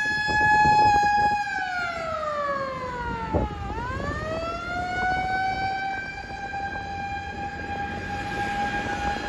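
Fire engine's mechanical motor siren wailing: it holds a steady pitch, winds down over about two seconds, then winds back up to full pitch and holds there, over traffic noise.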